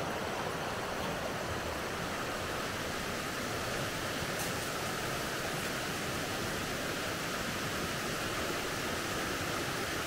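Steady rushing of a shallow stream running over rocks.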